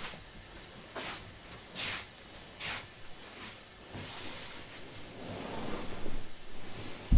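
Tabi-socked feet sliding across tatami mats in three soft swishes a little under a second apart, then a longer rustle of kimono and hakama fabric as the wearer kneels, ending in a soft thump as he settles onto the mat.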